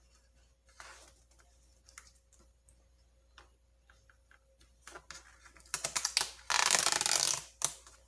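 Light clicks of a plastic pry pick working under a laptop's rubber foot strip, then a quick run of clicks and a loud tearing rasp near the end as the adhesive-backed strip is peeled off the plastic bottom case.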